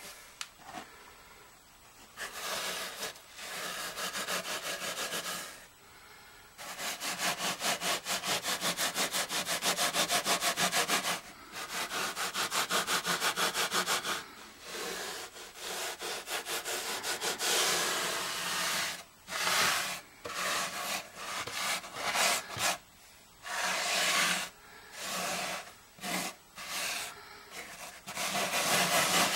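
A bare hand rubbing back and forth on worn, dirty low-pile carpet, a scratchy brushing of quick strokes several times a second. The strokes come in runs of a few seconds with short pauses, shorter and choppier in the second half.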